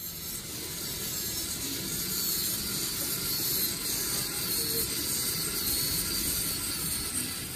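Motorised scale-model locomotive bogie running along its model track: a steady mechanical running noise of motor, gears and wheels, with a faint wavering high whine.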